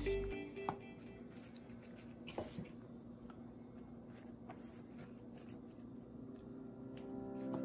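Faint taps and rustles of fingers pressing sushi rice into a plastic-wrap-lined wooden sushi press box, with one slightly sharper tap about two and a half seconds in.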